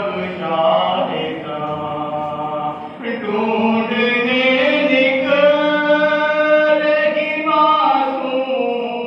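A man's solo, unaccompanied voice reciting a noha, a Shia lament, in long held, gliding notes. It breaks briefly for breath about three seconds in, then carries on into the next phrase.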